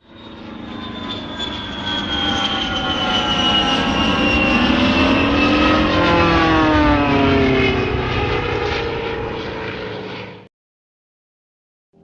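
Propeller aeroplane flying past: a many-toned engine drone grows louder, is loudest around the middle, and falls in pitch as it passes. It cuts off abruptly near the end.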